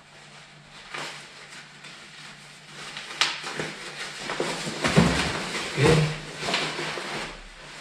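Textile motorcycle jacket being handled and turned over, its fabric rustling, with a few handling bumps in the middle.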